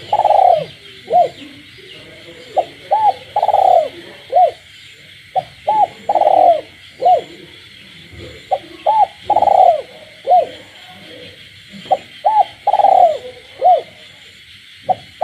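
Captive spotted dove cooing: the same phrase of a few short notes and one longer coo repeats about every three seconds, over a steady chorus of night frogs.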